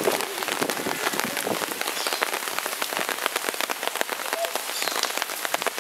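Steady rain shower falling on hard surfaces, a dense even patter of individual drops over a continuous hiss.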